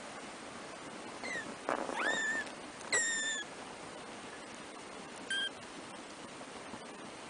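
Three-week-old kittens mewing: four short, high-pitched mews, the loudest about three seconds in, over a steady background hiss.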